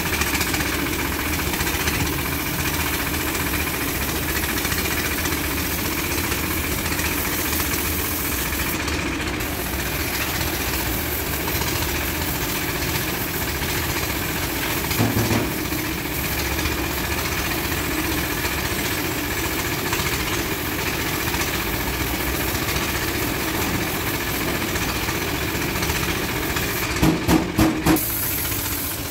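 Compressed-air paint spray gun hissing as paint is sprayed, over a steady machine drone. The hiss cuts out briefly twice, and near the end four short loud bursts stand out.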